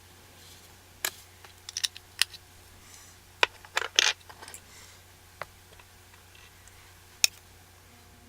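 Small makeup containers being handled: scattered sharp clicks and taps, bunched between about one and four seconds in, with a last one near the end.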